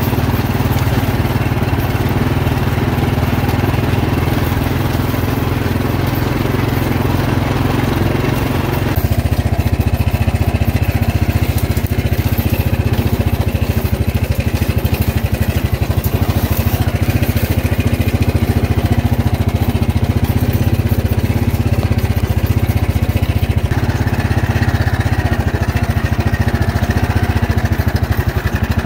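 Yamaha TerraPro ATV engine running steadily while the quad is ridden along a dirt track, heard from the rider's seat. Its sound changes abruptly about a third of the way in and again near the end.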